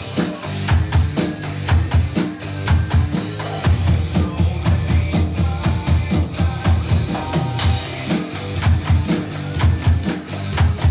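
Electronic drum kit played in a fast, driving rock beat, with kick, snare and cymbal hits, over the song's rock backing track.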